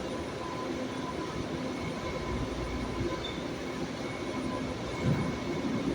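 BART train running, a steady rumble with a faint constant high tone over it.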